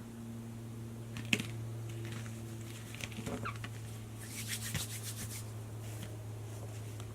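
Plastic Play-Doh toy pieces being handled on a table: a single click about a second in, then a quick run of clicks and scraping around four to five seconds in, over a steady low hum.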